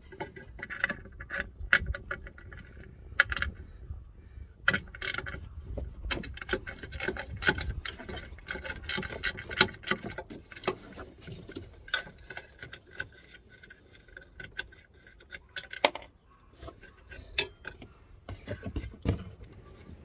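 Hand socket ratchet clicking in short, irregular runs, with metal tool clinks, as a 10 mm bolt on the horn mounting is worked loose.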